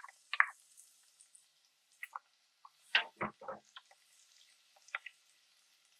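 A few sharp clicks and taps, then a quick cluster of knocks about three seconds in: a utensil knocking against a cast iron pot and bowl as diced onions and scallions go into melted butter and oil.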